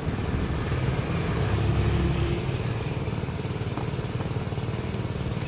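An engine running steadily: a low rumble with a fast, even pulse, swelling slightly about two seconds in.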